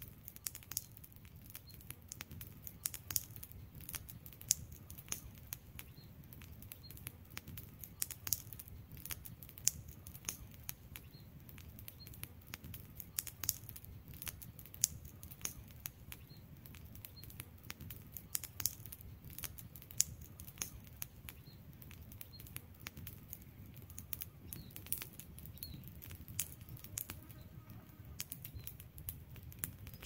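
Wood campfire crackling: burning logs giving off frequent irregular sharp pops and snaps over a low steady background.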